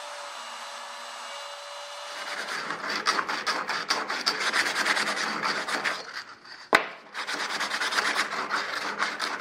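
A CNC router spindle running with a steady whine for about two seconds, then sandpaper rubbed quickly back and forth by hand along the edges of an aluminium inspection ring, smoothing them, with one sharp knock partway through.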